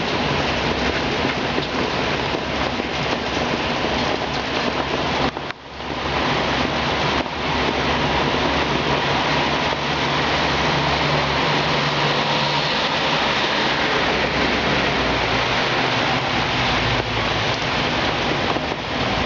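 Hurricane rain and wind making a steady, loud rush of noise, with a brief dip about five and a half seconds in.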